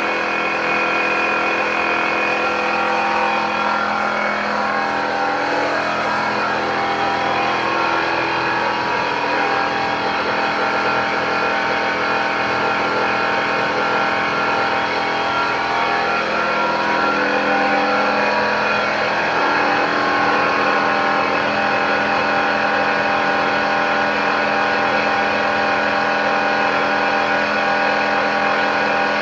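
A motor running steadily with a constant hum, shifting pitch slightly a few times.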